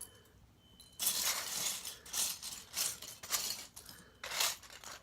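Loose plastic Lego pieces clattering and clinking as a hand rummages through a pile of them, in a run of short bursts after a quiet first second.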